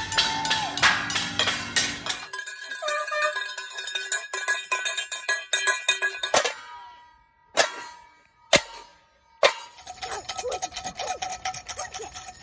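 Bells and struck metal clanging rapidly and ringing. About six seconds in the clanging stops. Three single ringing strikes about a second apart follow, then the rapid clanging starts again.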